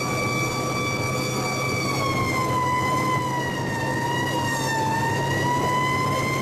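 Tiller ladder fire truck's siren heard from inside the cab, holding a steady high wail that sinks lower around the middle and winds back up near the end, over the steady drone of the truck's engine.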